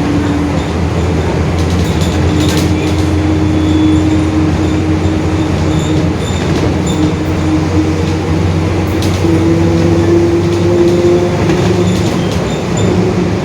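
Mercedes-Benz OF-1721 bus under way: the diesel runs steadily under a steady whine from the growling differential, whose pitch steps up a little about two-thirds of the way through. A few short rattles come through now and then.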